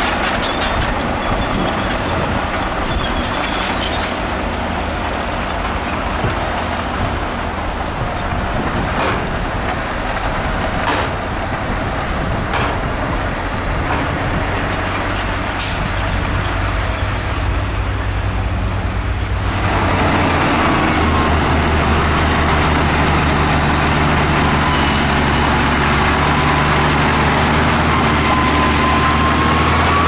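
Heavy diesel construction machinery running, with a few sharp metal clanks in the first half. A little past halfway the sound changes abruptly to a louder, steady engine note.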